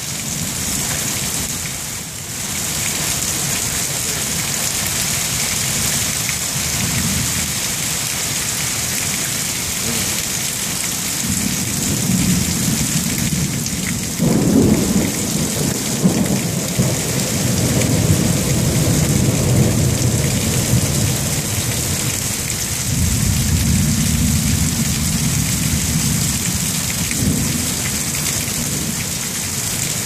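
Steady rain falling, with thunder: a low rumble builds from about eleven seconds in, breaks into a sharp clap at about fourteen seconds and rumbles on for several seconds, with another long rumble later on.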